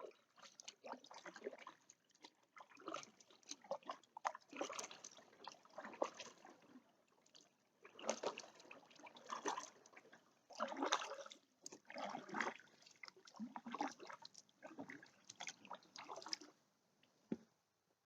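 Kayak paddle blades dipping into canal water in alternating strokes, a quiet splash and trickle about every second or so, with water dripping off the blades.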